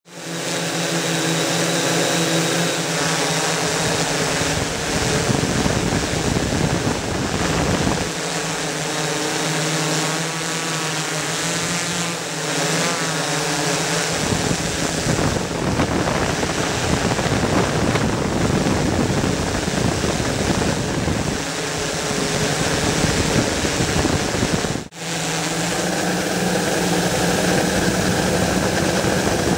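MikroKopter XL octocopter's eight electric motors and propellers buzzing steadily in flight, their whine shifting in pitch now and then over a rushing noise. The sound breaks off for an instant about 25 seconds in.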